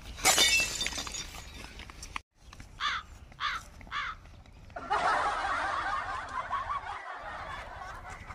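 Comic sound effects laid over the scene: a short crash-like burst at the start, three short chirps about half a second apart a few seconds in, and a dense cut-in effect for the last three seconds.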